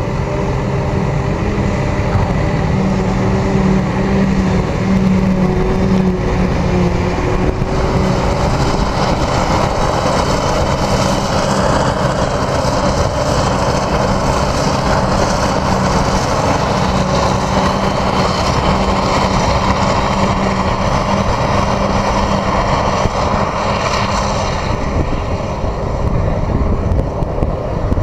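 Claas self-propelled forage harvester working flat out, chopping grass and blowing it into a trailer, mixed with the engine of the tractor drawing the trailer alongside. A steady loud mechanical din with a constant engine drone, growing louder about a third of the way in and easing near the end.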